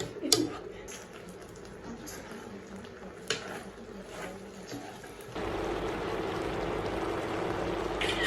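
A few light clicks and knocks, then a steady rush of water starts suddenly about five seconds in and keeps running.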